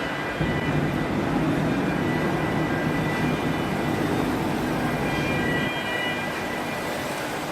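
Heavy engine running with a steady low rumble, which gets louder about half a second in, and a faint steady high-pitched whine above it.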